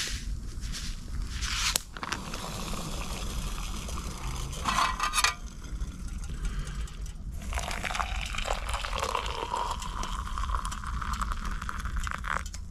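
A foil food pouch crinkling as it is squeezed out near the start, then hot water poured from a small camping pot into a steel mug, a sustained splashing pour over the last few seconds.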